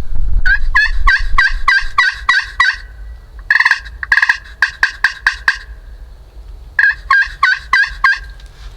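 Turkey calling in three loud runs of rapid, evenly spaced notes, about four or five a second, with short pauses between the runs. A low rumble sits under the opening second.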